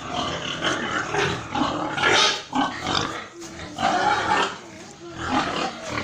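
Domestic pigs grunting in irregular bursts.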